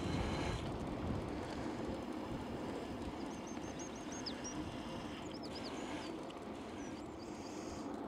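Wind on an unshielded microphone and tyre rumble from a bicycle freewheeling downhill, a steady noise. A small bird chirps a quick run of high notes about three seconds in, and again briefly later.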